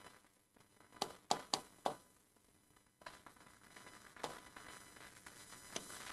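Pen writing on an interactive smart board's screen: a few short sharp taps about a second in, then faint scratchy strokes as the words are written.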